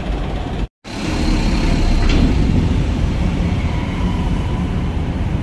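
Heavy diesel engine running with a steady low rumble as a tanker truck drives toward a ferry's bow ramp. The sound cuts out briefly under a second in, then resumes slightly louder.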